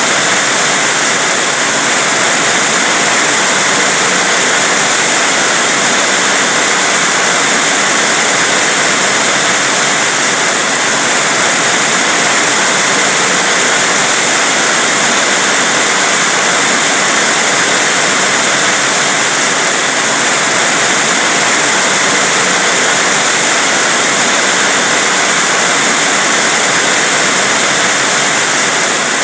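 Heavy rain falling steadily, a dense even hiss without let-up.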